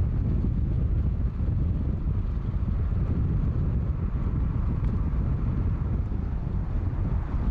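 Steady low rumble of wind and road noise from a car moving along an asphalt road.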